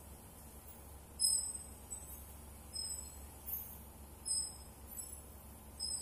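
Band sawmill machinery running with a steady low hum, and a high, metallic ringing tone that comes back about every second and a half.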